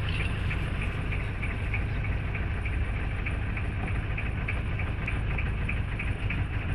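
Houseboat engine running steadily under way, a low drone with a light regular ticking about three times a second, over water washing along the hull.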